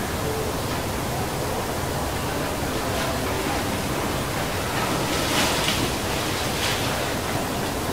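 A steady rushing hiss with no distinct sounds standing out, swelling slightly about five and a half seconds in.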